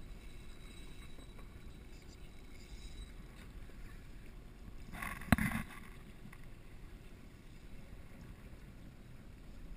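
Wind and choppy water against a small boat's hull, a steady low rumble, with a short loud burst and one sharp knock about five seconds in.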